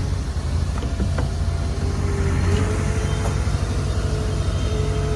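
Heavy machinery engine running steadily under load, with a faint steady whine above the low drone and a few light clicks.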